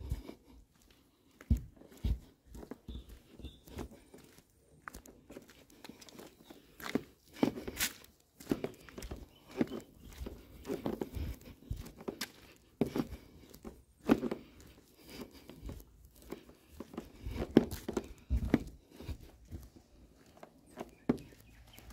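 Footsteps on a paved road, mixed with close rustling and knocks from the phone being handled while walking. The sounds come irregularly rather than in a steady rhythm.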